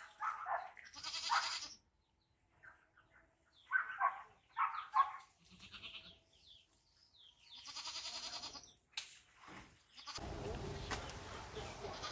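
Goats bleating, several wavering calls in short bouts, with a sharp click about nine seconds in and rustling near the end.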